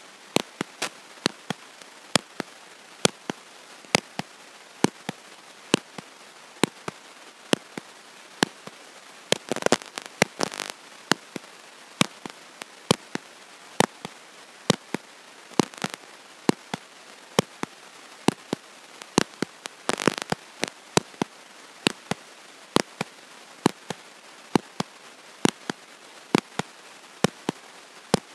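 Sharp clicks and pops at an irregular two to three a second, with denser bursts of crackle twice, over a steady hiss; no voice is heard. This is a recording fault, with the clicking in place of the presenter's speech.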